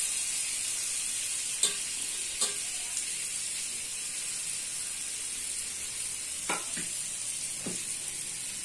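Eggplant (baingan bhaji) slices shallow-frying in oil in a pan, a steady sizzle, with a few light knocks.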